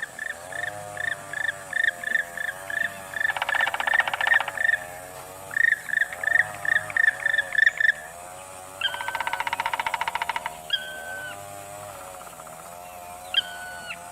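Birdsong: a run of short, sharp notes repeated about three times a second, broken twice by a fast buzzy rattle, over a steady wavering chorus of lower calls. A few longer whistled notes come near the end.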